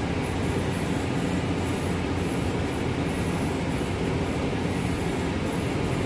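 Tractor's diesel engine running steadily under load while pushing snow with a front blade, heard from inside the cab as an even, low drone.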